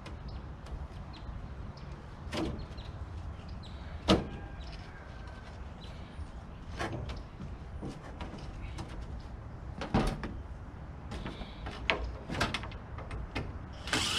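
Scattered metal knocks and clanks from handling a small air conditioner's sheet-metal housing and coil, with the sharpest knock about four seconds in and more near ten and twelve seconds.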